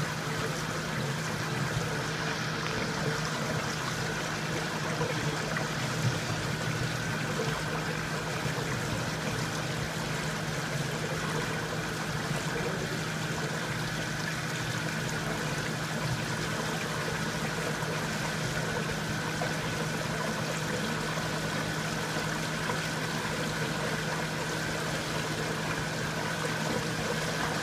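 Steady rush like running water, with a low steady hum beneath it, unchanging throughout.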